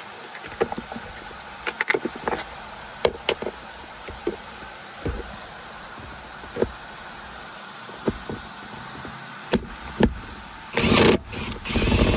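Scattered clicks and knocks of tools and small parts, then near the end a cordless drill or impact gun runs twice in short bursts, spinning out small center console bolts.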